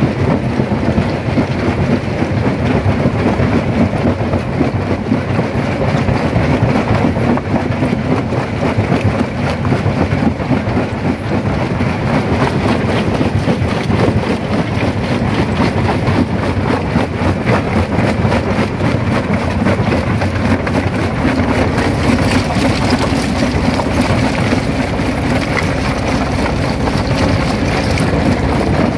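Primary jaw crusher running, a steady low rumble with dense, irregular knocking and cracking of stone being broken. A hiss joins in over the last several seconds.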